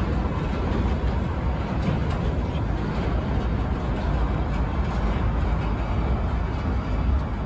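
A New York City subway 6 train running away along the elevated steel track: a steady rumble of wheels on rails that slowly fades as it recedes.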